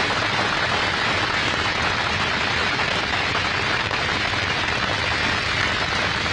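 A crowd applauding with steady, continuous clapping.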